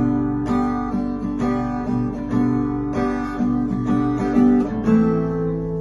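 Background music of acoustic guitar strumming chords, settling into a held chord near the end.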